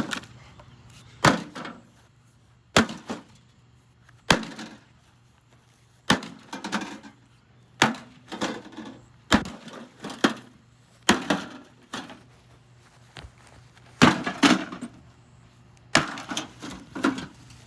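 An axe striking a General Electric JES1657SM2SS microwave oven again and again, about one blow every second or so, some in quick pairs, each blow followed by a brief clatter.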